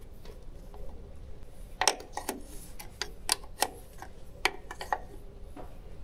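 Small metal wrenches clicking against the threaded adjuster nuts of a tractor's throttle cable: a scatter of irregular sharp metallic clicks, most of them in the middle seconds.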